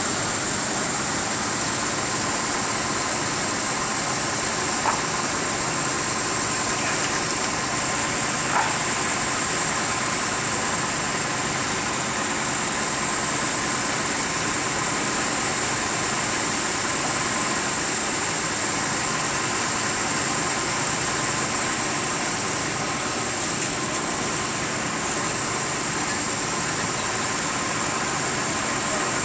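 An engine running steadily, with a steady high whine over it and a couple of faint clicks.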